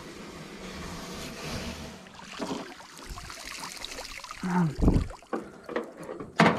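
Wet cast net being hauled hand over hand out of the water into an aluminium dinghy. Water streams and drips off the mesh for the first couple of seconds, then come irregular rustles, splashes and knocks of the net against the hull, the loudest about five seconds in and again near the end.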